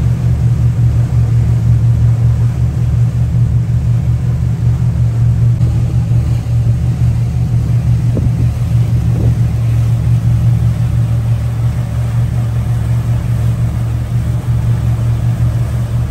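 Motorboat's engine running steadily under way: a low, even rumble with a fast pulse, over a haze of water and wind noise.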